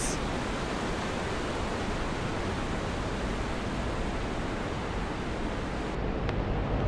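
Film-soundtrack ambience of a waterfall, an even rushing hiss. About six seconds in it turns duller, with more low rumble.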